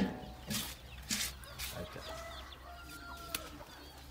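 Chickens clucking in short calls, with a few sharp knocks or taps in between, the loudest near the end.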